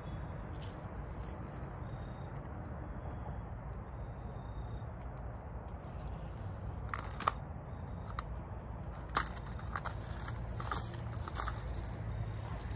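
Steady low outdoor rumble, broken by two sharp clicks about seven and nine seconds in, followed by a run of small crackling clicks near the end.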